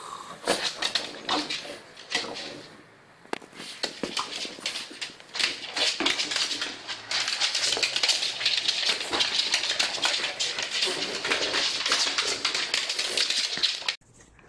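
Broom brushed and jabbed at a French bulldog on a wooden floor while the dog bites and tugs at it: the bristles scrape and knock against the floor in a dense run of clicks and scratches that turns into steady scraping about halfway through, with the dog's own noises mixed in.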